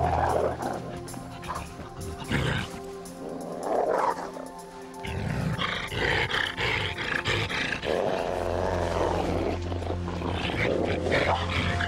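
A wolf and a wolverine fighting: harsh snarls and growls in repeated bursts. Background music with held notes plays under it, and a low drone comes in about eight seconds in.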